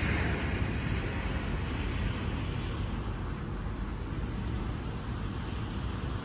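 Jet airliner coming in to land, its engine noise fading away after passing overhead, over steady wind rumble on the microphone.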